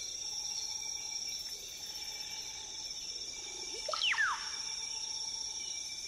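Tropical rainforest ambience: a steady high-pitched insect drone, with a brief whistled animal call about four seconds in that sweeps down in pitch twice.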